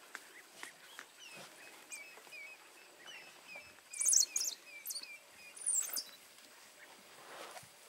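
Birds calling: a run of short, evenly spaced falling chirps, about four a second, with a few louder, sharper high calls about four and six seconds in.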